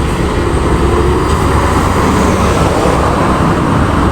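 Road traffic: vehicle engines and tyres making a steady, loud rumble.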